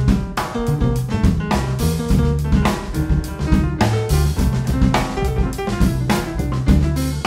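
Instrumental jazz with the drum kit to the fore, regular drum and cymbal strokes over a bass line and piano chords.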